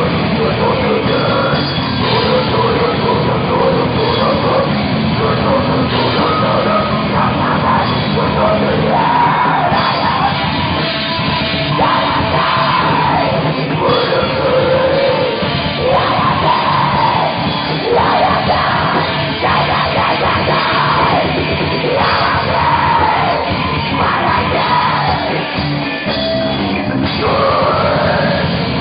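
Heavy metal band playing live, with a singer's vocals over the full band.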